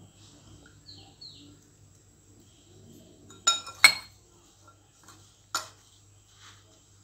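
A metal spoon clinking against a glass bowl while ivy gourd slices coated in a dry flour and spice mix are tossed. Two clinks come close together about halfway through, a third a couple of seconds later, with faint stirring between.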